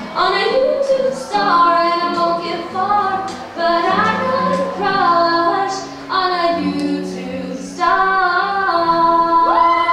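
A woman singing into a microphone with acoustic guitar accompaniment, in phrases with long held notes.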